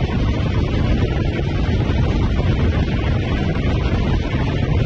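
Wind rushing over a camera mounted on the outside of a pickup truck at highway speed, with engine and road noise underneath; a steady, heavy rumble without changes in pitch.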